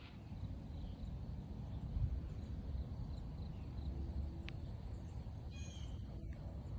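Outdoor ambience: a steady low rumble with faint bird calls now and then, including a short call a little before the end.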